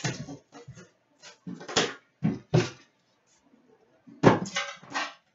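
Crinkling and tearing of a trading-card pack wrapper being opened by hand, in short irregular bursts. The loudest comes about four seconds in.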